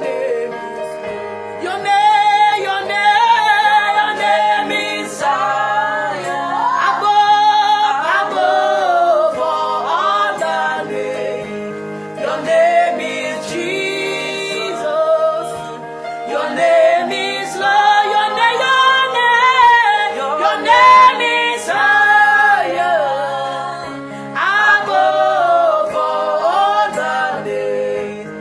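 Gospel worship music: a singing voice with choir-like vocals over sustained keyboard chords, sung in phrases of a few seconds.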